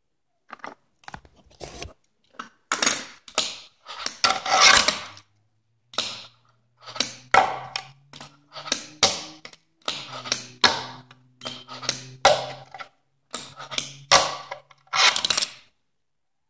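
A fingerboard handled on a stone countertop: a run of sharp clacks and short scrapes, with its wheels rolling in a low, steady hum for a second or two at a time through the middle.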